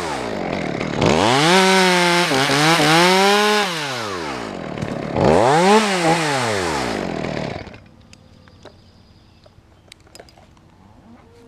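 Two-stroke chainsaw revved up twice. Each time the engine pitch climbs, wavers at high speed and falls away again. After about eight seconds the saw goes quiet, leaving only faint ticks and knocks.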